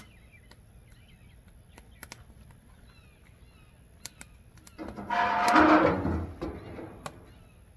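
Thin sheet-steel firebox lid of an offset smoker being swung shut, a loud metallic scrape and clatter about five seconds in, lasting under two seconds.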